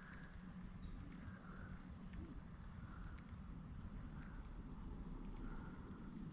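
Faint outdoor ambience: a steady high insect trill, with a soft call repeating about every second and a half over a low rumble.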